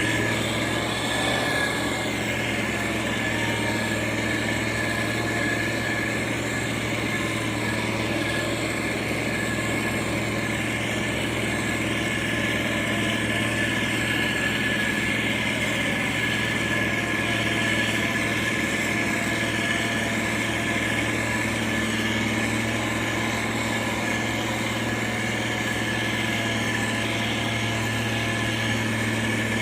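Motor grader's diesel engine running steadily at constant speed, with an even hum and a steady high whine over it.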